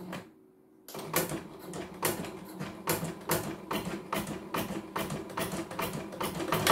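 CNY portable computerized embroidery machine starting to stitch about a second in, a rapid, even mechanical clatter of the needle and hoop drive, as it resumes an embroidery test run after a thread-colour change.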